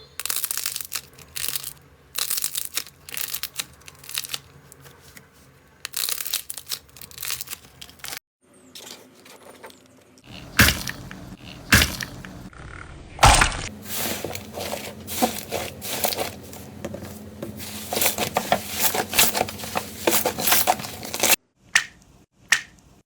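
Slime being squeezed and pressed, making dense runs of sharp crackling and popping clicks. The sound stops briefly about a third of the way through and again near the end.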